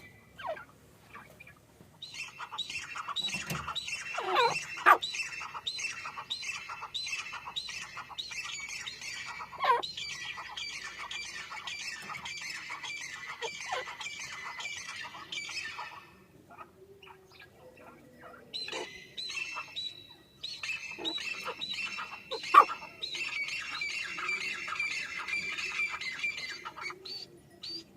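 Francolins (teetar) calling: rapid runs of high, squawky calls in two long spells, with a pause of about two seconds midway. A couple of brief louder sounds stand out, one about four seconds in and one after twenty seconds.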